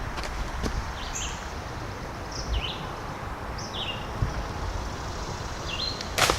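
A bird calling over and over, a short chirp about every half second, over a steady outdoor background hiss. Just before the end comes one sharp crack, the loudest thing here.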